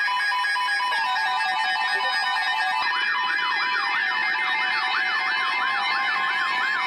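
Electronic emergency alert tones: several steady tones held together, joined about three seconds in by a siren-like wail that rises and falls about three times a second.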